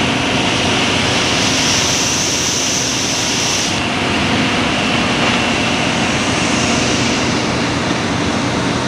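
Palm oil mill threshing station machinery running: the chain-and-slat bunch conveyor and threshing drum give a loud, steady mechanical din. A high hiss joins about a second and a half in and stops suddenly near four seconds.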